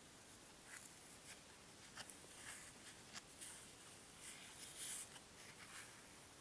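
Faint handling noise of a fingertip moving a small opal on a wooden stick: scattered light scratches and small clicks, with a longer rub about two-thirds of the way in.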